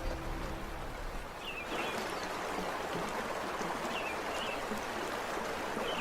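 River water rushing steadily, with a few short high chirps heard over it.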